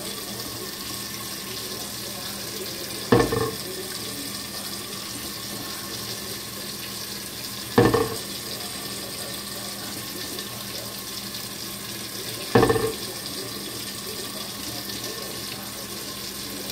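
Tap water running steadily into a stainless steel sink onto a glass pot lid, which knocks against the sink three times at even intervals of about four and a half seconds, each a short sharp clunk with a brief ring.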